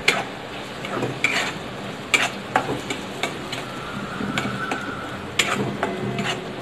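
Flat spatula stirring and scraping onion-tomato masala around a black kadai, with irregular scrapes against the pan every second or so over a faint frying sizzle as turmeric is worked in.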